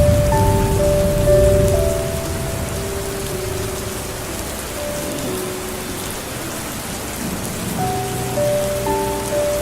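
Steady rain falling, with a low thunder rumble dying away in the first two seconds. Soft, slow, sustained melody notes sound over the rain.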